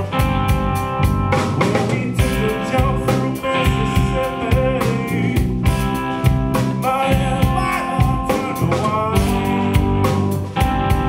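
Live blues-rock band playing: electric guitars over bass guitar and a drum kit. A guitar line bends its notes up and down a few times.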